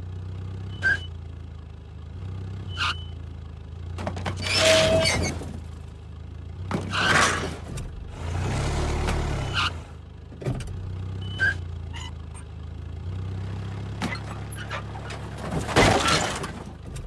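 A vehicle engine running steadily, with several short, loud bursts of noise and a few clicks on top.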